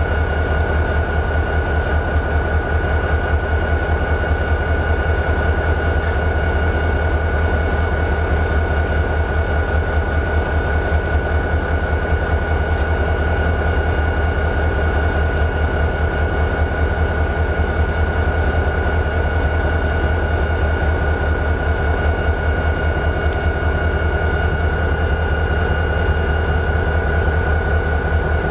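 CSX GP40-2 locomotive's turbocharged 16-cylinder EMD 645 diesel idling steadily: a deep, even, pulsing rumble with a steady high whine over it.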